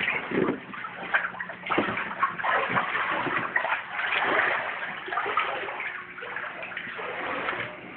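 Shallow floodwater on a house floor splashing and sloshing irregularly as someone wades through it.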